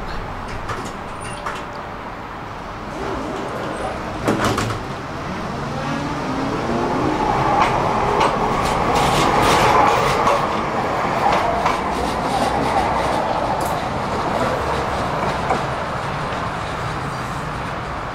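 Electric tram pulling away from a stop: a clunk about four seconds in, then the motor whine rising in pitch as it speeds up, with clacks of the wheels on the rails. It is loudest about ten seconds in and then fades as the tram moves off.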